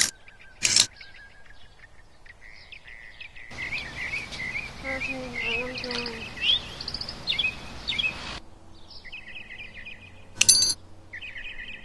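Small birds chirping and singing, with a sharp metallic click from the AR-15's parts being handled less than a second in and another about ten and a half seconds in.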